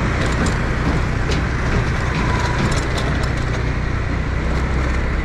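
Motor scooter engine running steadily while riding, with road and wind noise over it and scattered light rattles and clicks.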